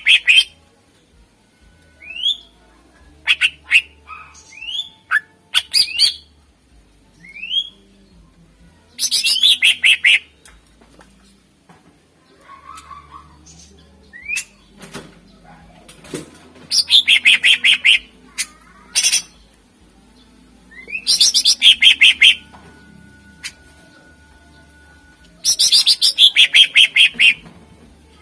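A cucak ijo (green leafbird) singing loudly. Four bursts of rapid trilled notes, each about a second long and sliding down in pitch, are broken up by short, rising whistled notes.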